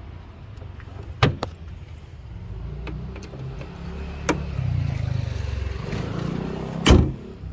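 Steady low vehicle rumble with a few light clicks, then one loud slam near the end as a Mercedes bonnet is shut.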